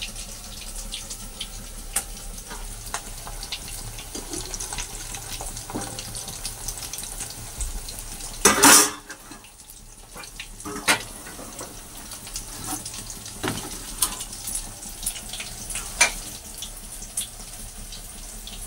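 Potato-stuffed wheat-flour snacks frying in hot oil in a kadai, a steady sizzle. There are scattered light clinks of utensils, and a brief loud rush of noise about eight and a half seconds in.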